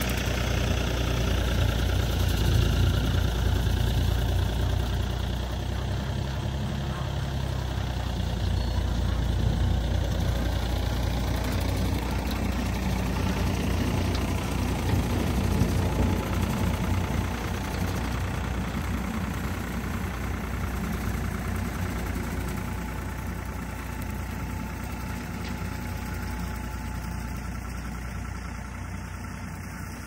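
Compact utility tractor's engine running steadily under load while its rotary mower cuts tall grass, growing gradually fainter as the tractor drives away.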